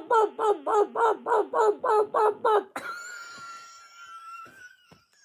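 A person's voice squawking rapidly, about four short falling calls a second, in a mock chicken impression. The calls cut off just under three seconds in and give way to a long, high, drawn-out wail that sinks slowly and fades.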